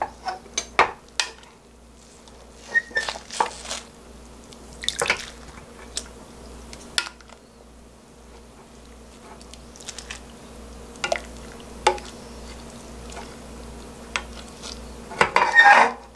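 Wooden spoon knocking and scraping in a stainless steel pot as boiled amaranth greens are scooped out into a glass bowl of cold water, with wet splashes and drips between scattered clicks. The busiest splashing comes near the end, when the greens are stirred in the cold water.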